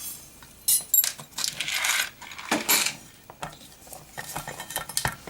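Metal parts and tools clinking and clattering while an amplifier is being taken apart on a workbench: a few sharp metallic clinks, with some rustling and scraping as parts are handled.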